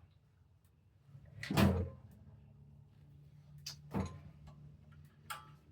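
A few knocks and clunks of things being handled, the loudest about a second and a half in and a sharper one about four seconds in, over a faint low hum.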